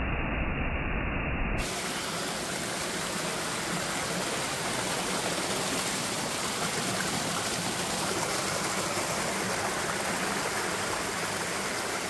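Water of a small waterfall cascading over rocks, a steady rushing. Just under two seconds in, the sound switches abruptly from a duller rush with low rumble to a fuller, brighter one.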